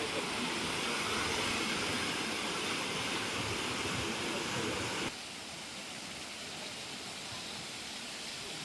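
Rushing water of a waterfall, a steady hiss. It drops to a quieter, duller level about five seconds in.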